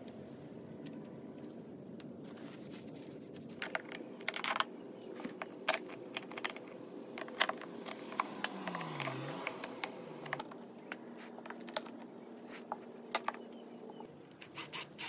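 Staples being pried and pulled out of a chair seat's upholstery with a metal staple remover and pliers: irregular sharp metallic clicks and snaps over a low steady hum, with a quick cluster of louder clicks near the end.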